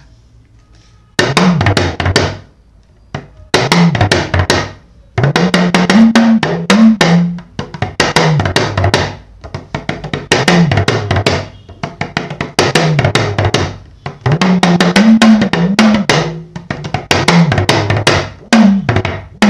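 Yoruba talking drum (hourglass pressure drum) struck with a curved stick in quick phrases, its pitch gliding up and down as the tension cords are squeezed, drumming out the tones of a Yoruba proverb. The phrases start about a second in, with short breaks between them.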